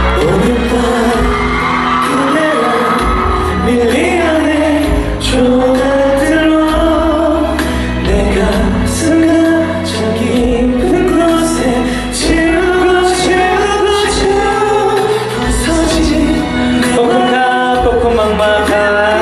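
A pop song with one voice singing a melody over a backing track with bass and a regular drum beat.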